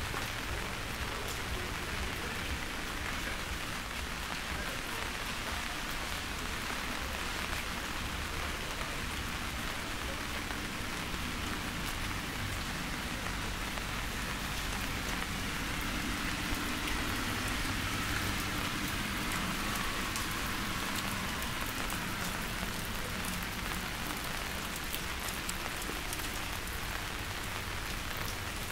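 Steady rain falling, with scattered individual drops heard as sharp clicks above the even hiss.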